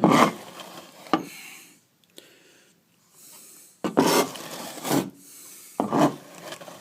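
A scraper blade scraping back a patch of partly set plaster (CSR corner cement) on a wall, in short rasping strokes: two near the start, a pause, then three more about a second apart. The plaster is at the stage of setting where it is just firm enough to scrape and peel off.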